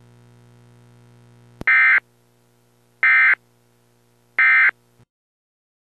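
Emergency Alert System end-of-message code: three identical short bursts of digital data tones, about 1.4 s apart, which signal that the alert broadcast is over. A click comes just before the first burst, and a low steady hum sits under the first part.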